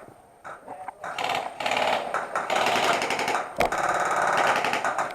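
Airsoft gun firing on full auto: a fast rattle of shots in several long bursts, starting about a second in and running almost to the end, with one sharp crack midway.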